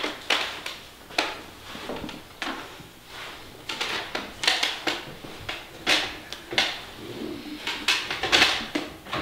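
Knife and fork scraping and clinking against a china plate in irregular short strokes, a few of them longer scrapes.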